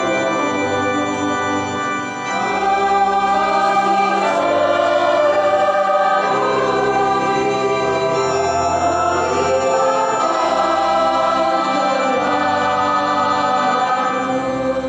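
Mixed church choir singing a hymn with organ accompaniment: sustained organ chords under the voices, the bass notes changing every second or two.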